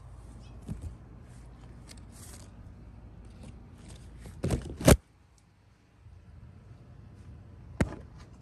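Grapevine leaves rustling and brushing against a handheld phone's microphone, with handling noise over a low wind rumble. The loudest brush and scrape comes about four and a half seconds in, and a sharp knock comes near the end.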